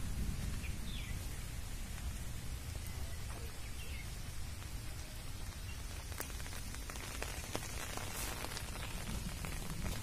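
Wind buffeting the microphone in a fluttering low rumble over a steady outdoor hiss, with a few faint bird chirps.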